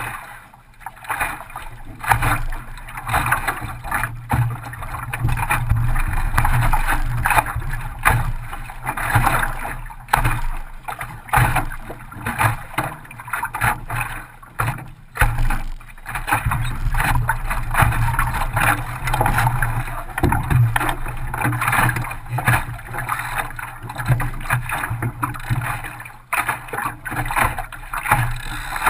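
Water splashing and slapping against the hull of a small Optimist sailing dinghy under way, with many short uneven splashes and knocks over a steady rumble of wind and water.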